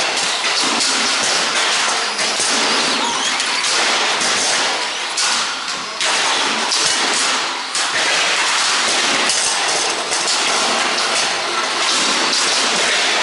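Radio-controlled stock cars racing round a small oval, their motors running continuously, with scattered sharp knocks from cars hitting each other and the barrier.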